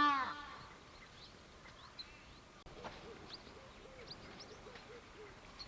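Birds calling in the bush. It opens with one loud, rich-toned call, then come scattered short high chirps. After an abrupt cut, a run of short low hooting notes repeats about three or four times a second.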